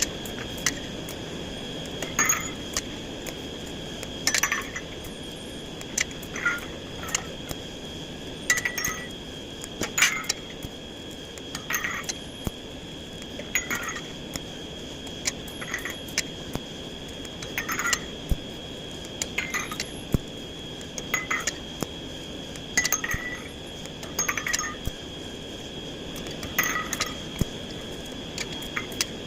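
Steel being tapped or struck lightly, over and over, a sharp metallic clink about every one to two seconds, each ringing briefly at a clear pitch. A steady high tone runs underneath throughout.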